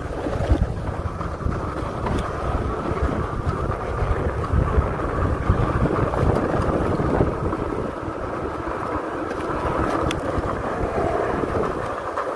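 Riding noise from an electric fat-tire bike: wind rushing over the microphone along with a steady low rumble from the tires rolling over sandy ground.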